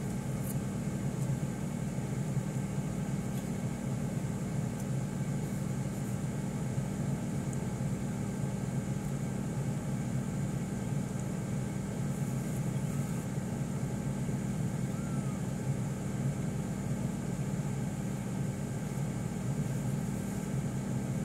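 A steady low mechanical hum with a faint hiss above it, unchanging throughout.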